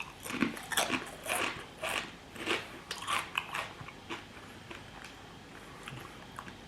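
Ridged potato crisps being bitten and chewed close to the microphone: a quick run of crisp crunches, about two or three a second, that tails off into quieter chewing after about four seconds.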